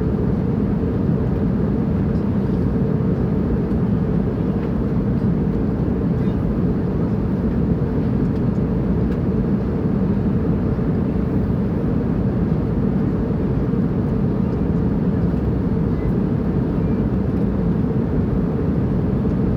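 Airplane in flight: a steady, unchanging low drone with no distinct events.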